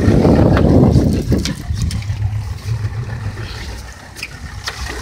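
Fishing boat's engine running with a steady low hum, with water sloshing against the hull. Wind buffets the microphone hard for the first second or so, and a few light ticks come later.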